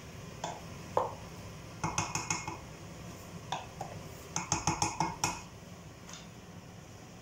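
Wooden spoon stirring vegetables in a stainless steel pot, knocking against the pot in scattered clacks, with a quick run of five or six knocks about four and a half seconds in.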